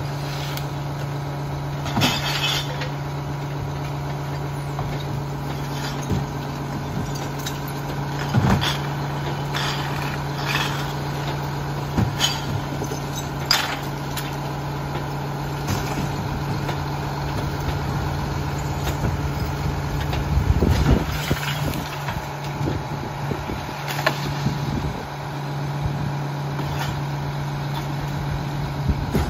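Rear-loader garbage truck's diesel engine idling steadily, with sharp bangs and clanks as trash cans are knocked against the hopper and emptied; a louder, rougher stretch of clatter comes about twenty seconds in.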